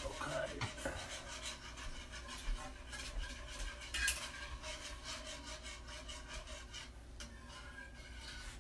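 Wire whisk scraping around a saucepan of milk and Alfredo sauce mix: a continuous run of quick rubbing, scraping strokes against the pan, with a sharper clink about four seconds in.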